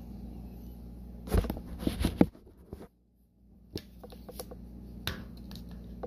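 Small sharp clicks and handling noises from seating a wire in a crimp terminal and working a ratcheting wire crimper, over a low steady hum. The sound drops almost to nothing for a moment a little before the middle.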